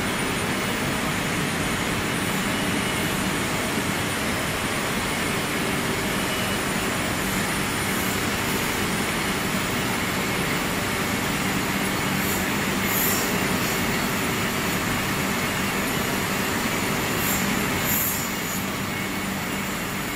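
Steady mechanical din of a textile padding and dyeing range running, a dense even noise with a low hum under it, and a few brief high-pitched squeaks or hisses in the second half.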